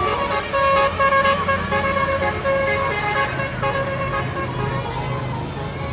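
A bus's Basuri telolet horn, a multi-tone Indonesian bus horn, plays a tune of held notes over the bus engine running. The horn notes fade about halfway through, leaving the engine rumble.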